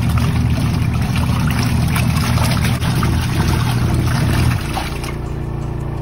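Giantex portable twin-tub washing machine running its wash cycle: a steady motor hum under water swishing and sloshing as the clothes churn in the tub. About four and a half seconds in, the churning and the louder part of the hum drop off, leaving a lower hum.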